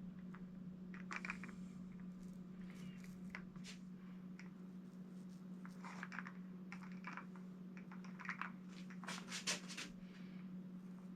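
Small foam paint roller worked over tacky paint on a metal sign's lettering: scattered light sticky crackles and clicks, busiest about nine seconds in, over a steady low hum.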